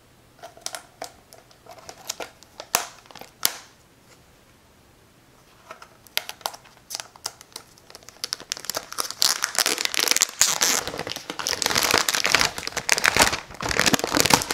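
Packaging being handled and unwrapped: a few sharp taps and rustles at first, then dense crinkling of plastic wrapping that grows louder through the second half as the router is pulled free.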